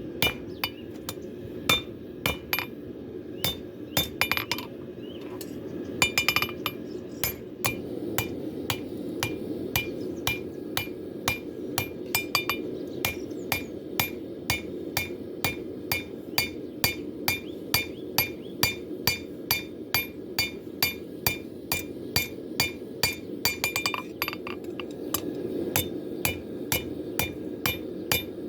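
Hammer blows on hot W2 steel on an anvil as a blade is forged, each strike with a short metallic ring. The blows are uneven for the first several seconds, then settle into a steady rhythm of about two a second.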